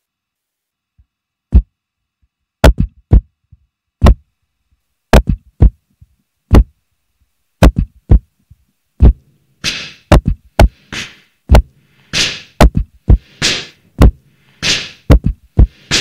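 Beatboxed kick drum run through the Boss RC-505 loop station's Guitar to Bass and EQ effects, giving deep single hits at an uneven pace. From about ten seconds in, hissy beatboxed snare sounds come in between the kicks, making a layered beat.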